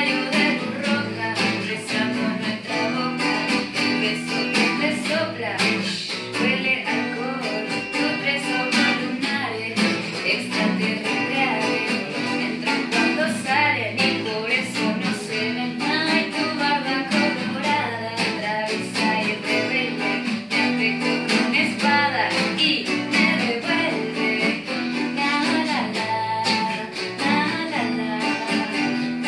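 Two acoustic guitars strumming and picking a folk song while a woman sings.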